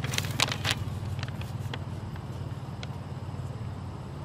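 A paper letter crinkling a few times in the first second as it is unfolded and handled, over a steady low hum of a motor vehicle engine.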